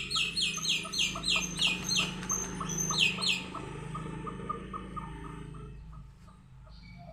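Chickens calling: a fast run of high, falling peeps for the first two seconds and again about three seconds in, over a steady string of short low clucks that fade away near the end.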